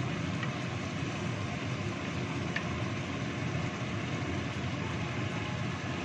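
Chicken in coconut-milk sauce simmering in a wok over a gas burner: a steady rumbling noise of flame and bubbling, with a couple of light taps of a wooden spatula against the pan as it is stirred.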